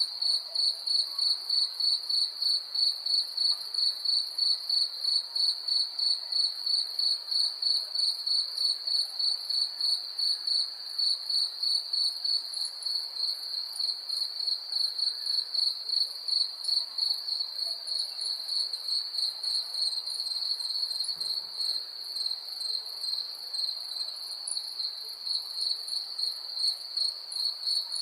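Crickets chirping in a steady, evenly pulsing high-pitched chorus, with a faint hiss of background noise underneath.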